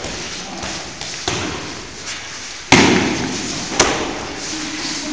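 Sparring blows from gloves and shin guards landing: three sharp smacks, about a second in, the loudest a little past the middle, and another about a second later.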